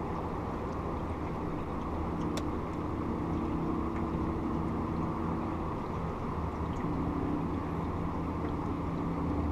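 A boat motor running steadily over the rush of water and wind, with one sharp click about two and a half seconds in.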